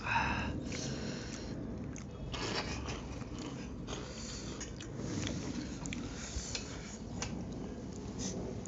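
Two people eating Current instant noodles: close-up chewing and slurping, with scattered light clicks of forks and spoons on metal plates.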